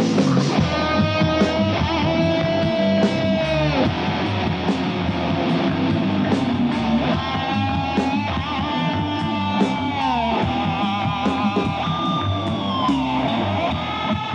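Heavy metal band playing an instrumental break: a distorted electric guitar holds long, bent notes with vibrato over driving bass and drums.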